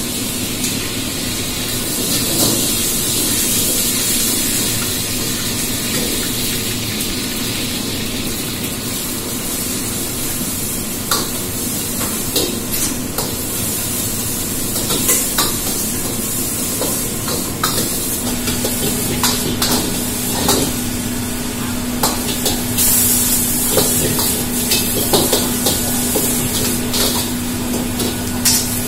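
Wok stir-frying over a high gas burner: steady sizzling and burner hiss, with a metal ladle clanking and scraping against the wok. The clanks come often from the middle on and quicken near the end, and a steady hum joins about two-thirds of the way in.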